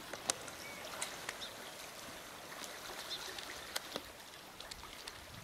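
Small waves lapping and trickling along a rocky, kelp-covered shoreline: a steady soft wash with scattered sharp ticks and pops, the loudest a little after the start.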